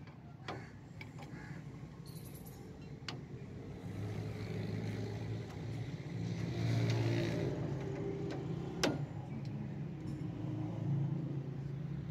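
A motor vehicle engine running, its hum growing louder about four seconds in and staying up, with a few sharp metal clinks from hand work on a rickshaw's rear brake assembly, the loudest near the end.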